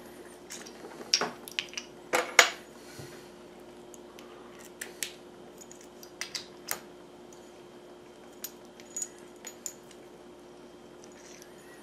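Metal clicks and clinks from handling a chrome trailer-hitch receiver lock, its cap being slid onto the locking pin and the parts knocking together, in scattered taps with the loudest about two seconds in. A faint steady hum runs underneath.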